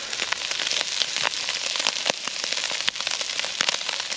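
Bacon lardons frying in a hot pan, the fat sizzling and crackling with many sharp pops as it renders out.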